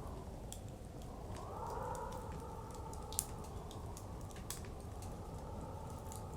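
Wood fire crackling with scattered sharp pops, one louder about three seconds in, over a steady rush of blizzard wind that swells in a gust between about one and a half and two and a half seconds in.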